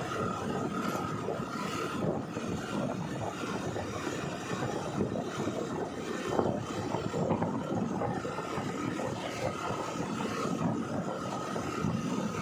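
Steady running noise of a moving road vehicle: the engine running with road and air rush, and a faint steady whine on top.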